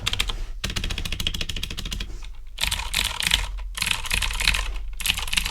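Fast typing on a Redragon K552 mechanical keyboard with clicky Outemu Blue switches and double-shot PBT keycaps, modded with lubed springs, a rubber-dampened aluminium plate and a coin-weighted, foam-filled case. The keystrokes come in quick bursts broken by several short pauses.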